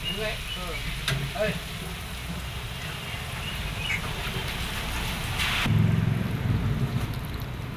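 Onions, peanuts and green chillies with turmeric and chilli masala sizzling in oil in an iron kadhai, with a perforated spatula clicking against the pan in the first second or two. A short hiss comes about five and a half seconds in, after which the sound turns duller and lower.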